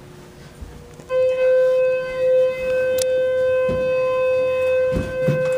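Elevator emergency alarm sounding: a loud, steady, unwavering electronic tone that switches on about a second in and holds, with a few light knocks of handling.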